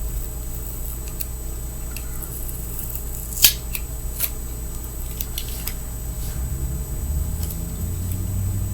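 Small clicks and scratches of foam grip tape being peeled and scraped off a fingerboard deck, with one sharper click about three and a half seconds in, over a steady low hum.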